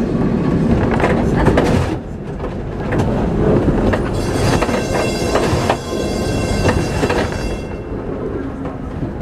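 Lisbon tram rumbling along its rails, heard from on board, with short knocks over the rail joints. From about four seconds in, the wheels squeal in a high, steady whine for nearly four seconds as the car takes a curve through a junction.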